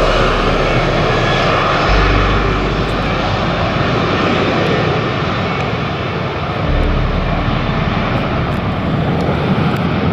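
Airliner engines, a steady loud rush of engine noise.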